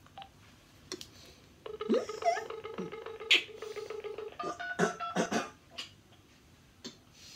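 Uniden XDECT cordless phone on speaker: a steady dial tone comes on about two seconds in and holds for nearly three seconds, with one sharp click over it. A quick run of keypad dialling tones follows as a number is entered.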